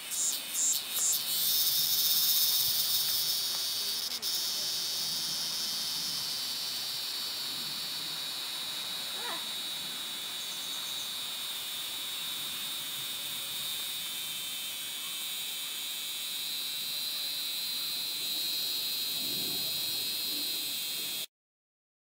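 Male cicada singing with its tymbals: a high-pitched buzz that pulses about three times a second, then about two seconds in merges into a steady drone that cuts off suddenly near the end.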